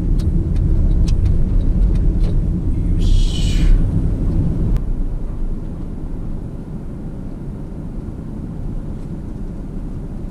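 Car engine and road rumble heard from inside the cabin as the car drives slowly, dropping off after about six seconds as the car slows to a stop. A brief hiss about three seconds in.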